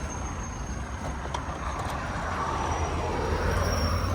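Road traffic: the engine and tyre noise of a passing vehicle, growing louder toward the end.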